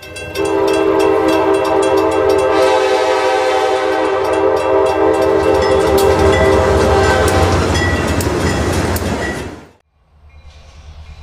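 Diesel locomotive's multi-chime air horn sounding one long blast of several tones together, with grade-crossing bell dings and the locomotive's low engine rumble. The horn stops about seven seconds in, the rumble cuts off abruptly near ten seconds, and a faint low rumble follows.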